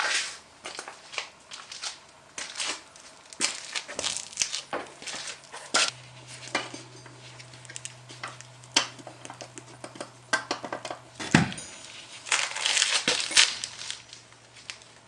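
Irregular clinks, knocks and rattles of tools and metal parts being handled, with one sharp knock about eleven seconds in, over a faint low hum.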